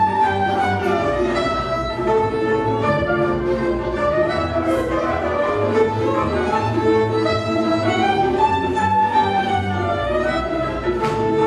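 Hungarian folk dance music from the Bodrogköz region, a fiddle-led bowed string band playing a lively melody over a steady bass accompaniment.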